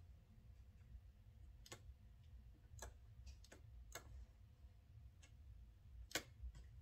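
Near silence: a low hum with about half a dozen faint, sharp clicks at irregular intervals as fabric is handled at a Bernina sewing machine's needle and presser foot, the machine not stitching.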